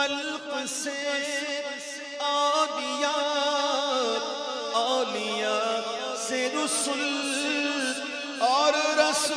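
Male naat reciter singing unaccompanied-style devotional verse in long held, wavering notes over a steady low drone. A new phrase begins near the end with notes swooping upward.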